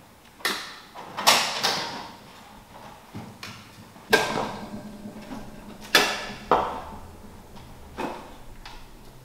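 Waste soundscape of sharp knocks and clatters at irregular intervals, each fading out in a ringing, reverberant tail; the loudest hits come about a second in, just after four seconds and around six seconds.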